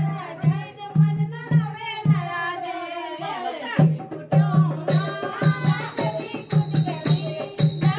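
Devotional kirtan: voices singing a bhajan over a hand drum beating about twice a second, with jingling percussion. The drum stops for a moment just before halfway, and the jingles come back in about five seconds in.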